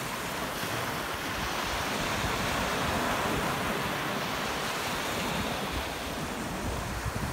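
Small sea waves breaking and washing up a sandy beach: a steady surf hiss that swells a little and eases again.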